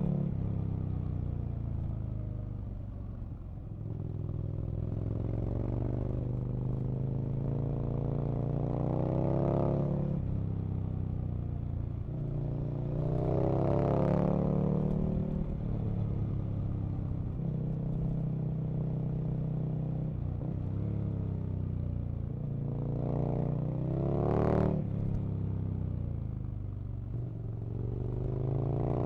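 Aprilia RSV Mille's V-twin engine under way, its revs climbing hard and then dropping away several times as the throttle is opened and closed, with a steadier stretch past the middle and the sharpest climb near the end.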